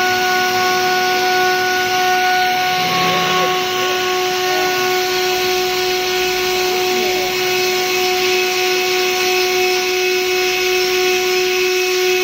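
CNC router with side rotary axis running: a steady whine of several held tones over a constant hiss, with one of the higher tones dropping out about three seconds in.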